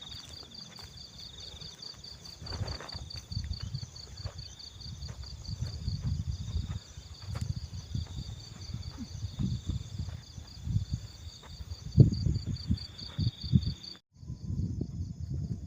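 An insect trilling steadily in an even, rapid, high-pitched pulse, over irregular low rumbling thumps. Both cut out briefly near the end.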